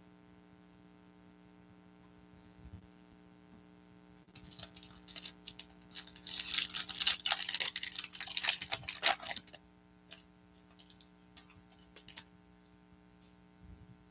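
Foil trading-card pack wrapper being torn open and crinkled for about five seconds, starting about four seconds in, followed by a few light clicks of cards being handled. A steady electrical hum runs underneath.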